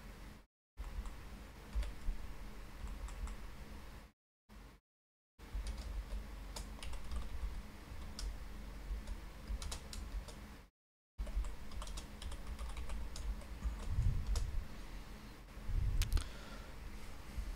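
Typing on a computer keyboard: irregular runs of key clicks over a low steady hum, with two low thumps near the end. The sound cuts out to silence briefly three times.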